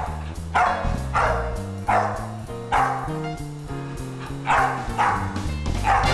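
Background music with a dog barking over it: short barks repeated about once every second.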